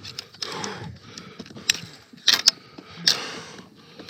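A few sharp knocks and clacks of hard gear against a plastic kayak hull, with water sloshing between them.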